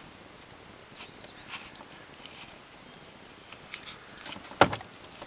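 Quiet rustling and faint clicks as a fish is worked out of a landing net in a small boat, with one sharp knock about four and a half seconds in.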